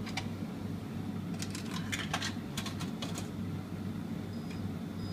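Vending machine keypad buttons clicking as a selection is keyed in, a handful of light clicks over a steady low hum from the machine, with two short high beeps near the end.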